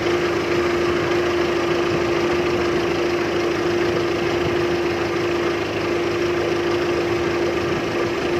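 Small fishing boat's engine running steadily: a constant, even hum with a single strong tone that does not change.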